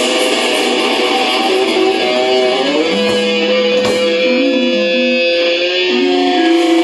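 A live rock band's electric guitars hold long sustained notes that step and slide slowly in pitch while the cymbal wash dies away in the first second. A couple of light drum hits come in the middle.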